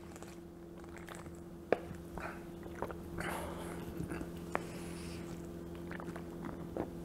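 A man gulping a drink from a plastic bottle: soft swallowing and mouth sounds with small clicks, over a faint steady hum.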